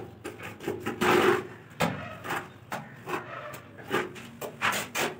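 Wet cement mortar being scooped and scraped out of a bucket and put on the back of a ceramic wall tile: a run of short, irregular scraping strokes.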